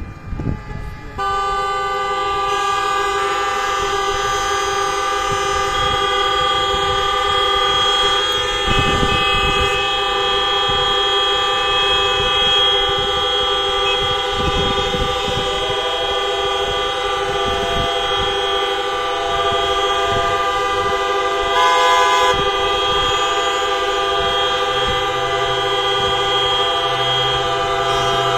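Many car horns held down together in one long, steady chorus that starts about a second in. This is the horn salute of stopped traffic marking the 9:05 moment of remembrance for Atatürk on 10 November.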